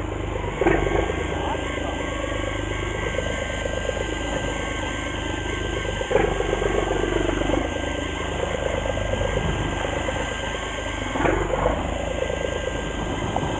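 A fishing boat's engine running steadily at low revs, with a few short louder sounds that sweep in pitch about a second in, around six seconds and near eleven seconds.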